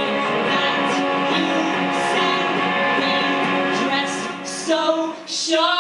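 Live rock music: electric guitar chords ringing steadily. Near the end the guitar thins out and a woman's voice comes in singing.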